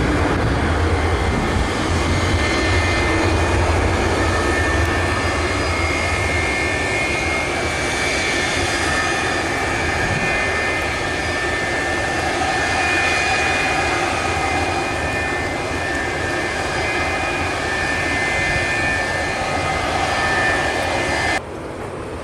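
Airbus A320 airliner's jet engines running loud and steady with a whine as the jet rolls along a wet runway, tyres throwing spray. Near the end the sound drops suddenly to a quieter level.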